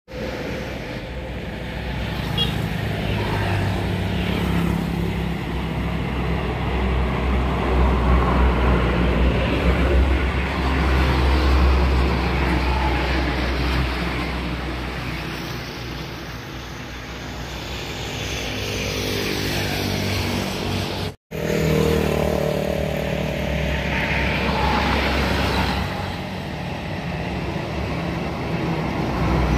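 Passing highway traffic: heavy diesel trucks carrying motorcycles drone past, and motorcycle engines buzz by close at hand. The sound swells and fades with each pass, and it cuts out briefly about two-thirds of the way through.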